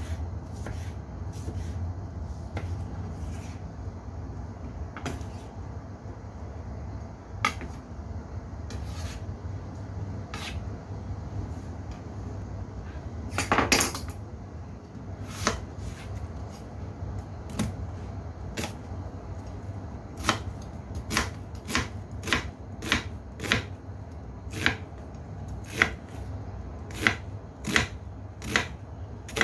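Kitchen knife cutting through tomato and then a white onion onto a bamboo cutting board. Scattered knocks at first, a brief louder cluster of knocks about halfway through, then a regular run of knife strokes a little faster than one a second, over a steady low hum.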